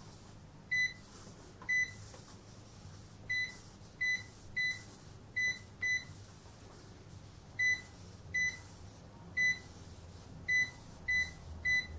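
Sam4S ER-900 series cash register giving a short, high confirmation beep for each key pressed on its flat keyboard as characters are entered: about thirteen beeps at uneven intervals, following the typing.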